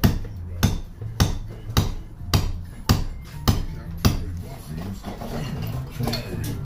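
Hammer blows on brickwork, knocking bricks out of a load-bearing brick wall: about eight hard, evenly spaced strikes, a little under two a second, stopping about four seconds in.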